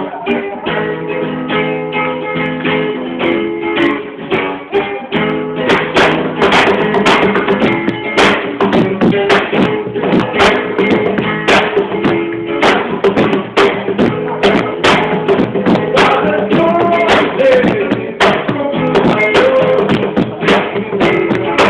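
Acoustic guitar strummed in a flamenco style, with sharp percussive hits joining in about six seconds in and keeping a rhythm.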